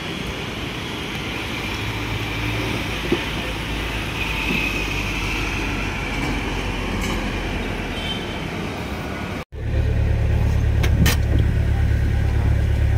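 Steady road and engine noise of a moving motor vehicle. It drops out for an instant about nine and a half seconds in and comes back as a louder, deeper rumble.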